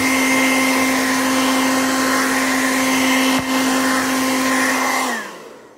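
Hairdryer running steadily, a rush of air with a steady hum, blowing cleaning fluid off a circuit board to dry it. About five seconds in it is switched off and winds down, its hum falling in pitch as it fades.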